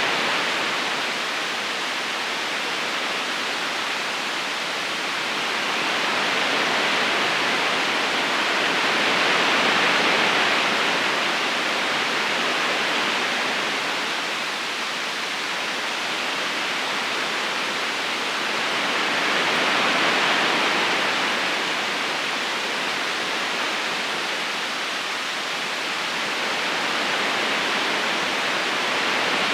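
River current flowing: a steady rush of water that swells and eases about every ten seconds.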